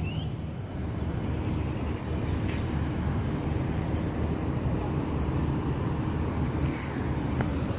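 Car engine running steadily as a car pulls up, heard as a low, even rumble.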